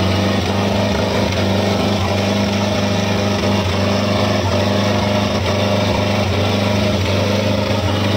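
Tractor diesel engines running hard under heavy load in a tractor tug-of-war, at a steady, even pitch.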